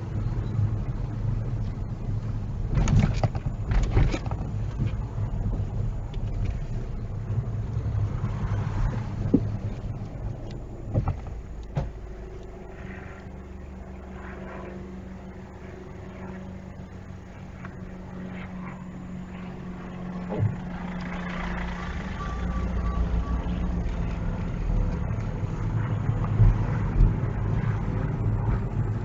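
A car driving, heard from inside the cabin: low road and engine noise that drops to a quieter, steady engine hum for several seconds midway, then builds again. A few short knocks and clicks come through.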